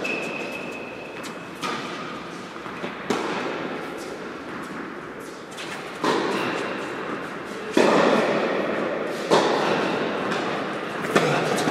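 Tennis ball struck by rackets and bouncing on the court during a rally, about seven sharp hits one and a half to two seconds apart. Each hit echoes in a large indoor tennis hall.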